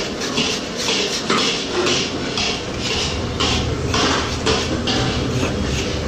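Steel kitchen knife scraping sugar paste off a wooden mould and a metal tray in repeated short strokes; a low rumble comes in about halfway.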